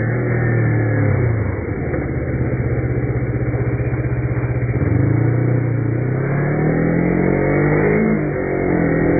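Kawasaki Ninja motorcycle engine running under way: its pitch falls about a second and a half in, then climbs steadily through the second half as the bike accelerates.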